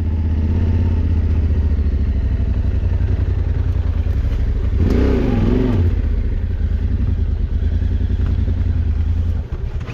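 Adventure motorcycle engine running at low revs, with a brief rise and fall in pitch about five seconds in; the engine sound drops away near the end.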